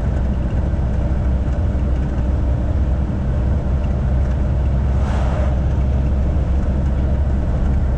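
Truck's diesel engine running steadily on the move, a low rumble heard from inside the cab, with a brief hiss about five seconds in.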